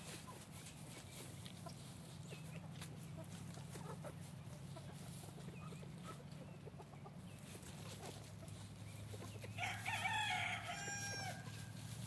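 A rooster crows once near the end, a single crow lasting about a second and a half. Before it come scattered soft clucks from foraging chickens.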